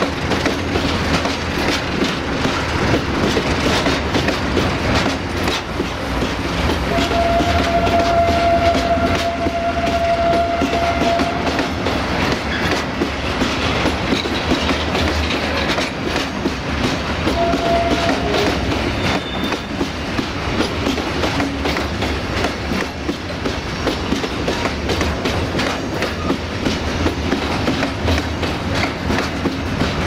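Freight hopper wagons rolling past close by, a steady clatter of wheels over the rails. A drawn-out high tone sounds for several seconds about a quarter of the way in.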